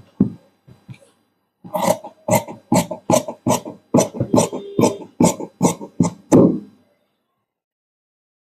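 Large tailor's shears snipping through khaki uniform cloth while cutting the rounded armhole curve: a run of about fifteen quick cuts at roughly three a second, starting about two seconds in and stopping a little before the end.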